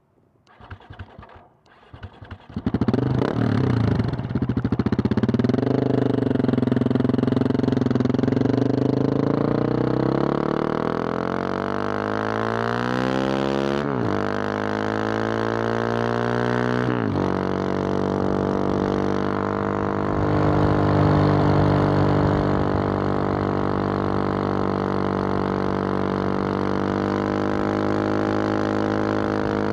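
A 2021 Husqvarna 701 Supermoto's single-cylinder engine through a Wings aftermarket exhaust, being ridden. The engine note comes in loud about three seconds in and climbs in pitch under acceleration. It drops sharply at two upshifts, about halfway through and three seconds later, then holds steady at cruising speed.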